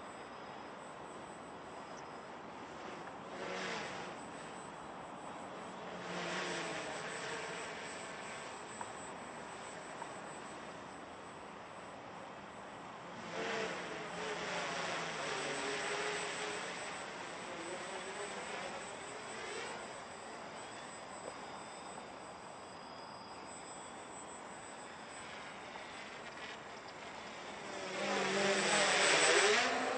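Walkera Hoten-X quadcopter's electric motors and propellers buzzing in flight, the pitch sweeping up and down as it manoeuvres. The sound swells several times and is loudest just before the end.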